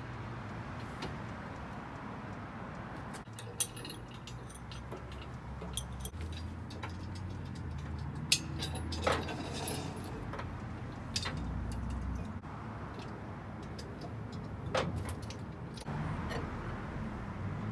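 Chain and hook clinking, with scattered sharp metal clicks and knocks, as a pickup truck-bed crane is rigged to a generator and worked. A steady low outdoor rumble runs underneath.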